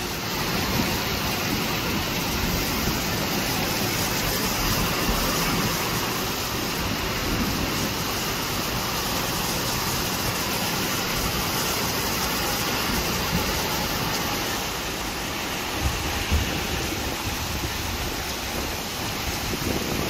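Thunderstorm rain pouring steadily, with wind rumbling on the microphone.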